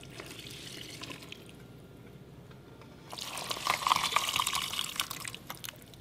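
Beef juice from a crock pot poured into a stainless steel dog bowl: a faint trickle at first, then a louder splashing pour about three seconds in that lasts a couple of seconds before tailing off.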